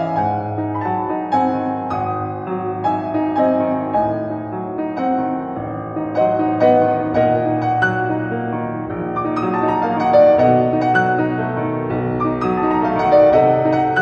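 Background piano music, with many notes played over held lower notes.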